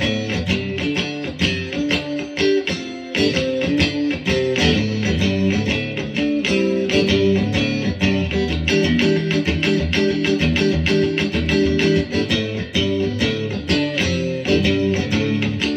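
PRS SE Swamp Ash Special electric guitar played on its neck and middle pickups together in humbucking mode, fitted with Planet Tone Memphis Historical spec humbuckers: a quick run of picked notes and chords, several notes a second.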